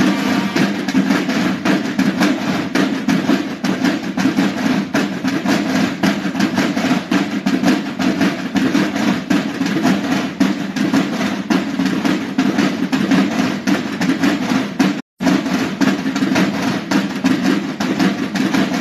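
Marching band drums playing loudly, with fast, dense drum strokes over a steady low drone. The sound cuts out for a split second about 15 seconds in.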